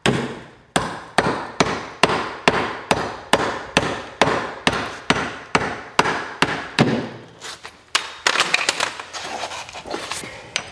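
Claw hammer striking drywall in steady, quick blows, about two or three a second, knocking out a square hole in the wall. After about seven seconds the blows give way to lighter, irregular knocks and clatter.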